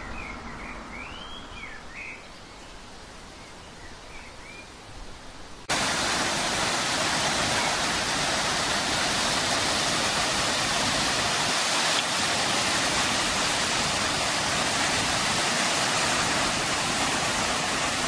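Faint outdoor hum with a few short chirps, then about six seconds in a sudden cut to the loud, steady rush of a waterfall, white water pouring over rocks into a river.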